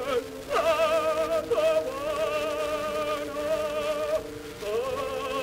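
An operatic tenor sings long held notes with a wide vibrato over accompaniment. About four and a half seconds in, the voice breaks briefly, then slides up into a new held note. It is an old Pathé disc recording.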